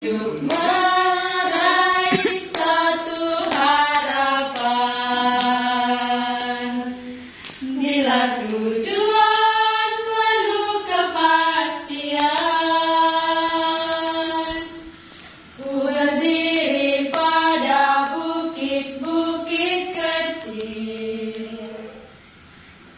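A small group of young nuns singing a song together in women's voices, with long held notes. They sing in phrases, with short breaks between them about every seven seconds.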